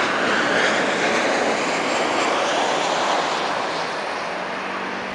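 Jet airliner engines roaring as the aircraft passes, the noise slowly fading.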